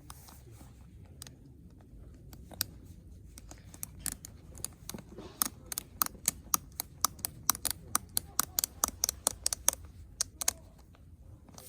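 Footsteps crunching and clicking on snow and ice, with a quick run of sharp clicks through the middle.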